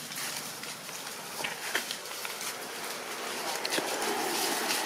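Steady outdoor hiss with a few scattered light crackles of dry leaf litter as macaques walk over it.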